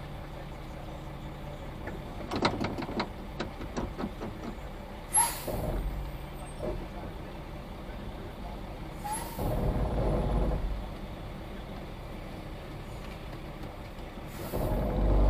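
Concrete mixer truck's diesel engine running under load, with three short, loud blasts of air hiss from the truck's air brakes, each followed by the engine pulling harder as the truck creeps along the form. A quick run of clicks comes a couple of seconds in.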